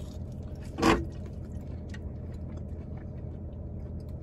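People chewing fast food, with faint small clicks of mouth and food sounds, over a steady low hum in a car cabin. One short, sharp, loud noise comes about a second in.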